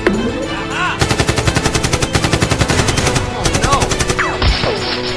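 A rapid burst of automatic gunfire, a movie sound effect laid over a Nerf-gun fight, starting about a second in and lasting about two seconds, over action background music.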